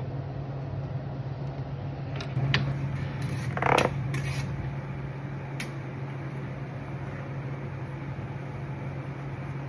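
TIG welder running during welding of thick mild-steel 4-link brackets: a steady low hum, with a few sharp clicks a couple of seconds in and a brief louder clatter a little before the halfway point.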